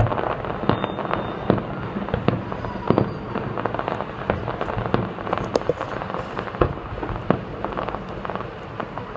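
Fireworks show heard from a distance: a rapid, irregular string of bangs and crackling shell bursts, busiest in the first few seconds and thinning out toward the end.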